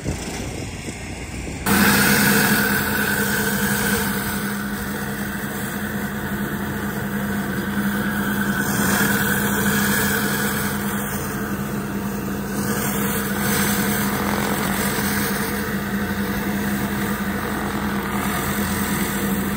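Pressure washer engine running steadily, with the hiss of water from a spinning surface cleaner sweeping a concrete walkway. The engine hum and spray cut in abruptly about two seconds in, after a quieter stretch.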